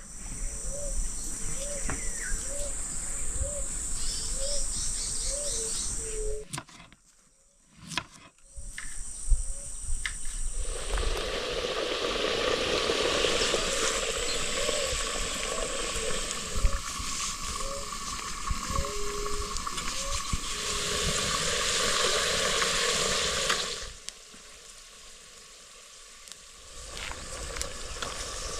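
Natural island night chorus: high steady insect trilling with a short rising call repeating about every half second. It drops out briefly around a quarter of the way in. A dense hissing chorus then swells for over ten seconds and falls away near the end.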